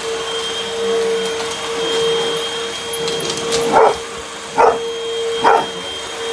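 Vacuum cleaner running with a steady motor hum and whine, while a puppy barks at it three times in the second half, each bark short and sharp.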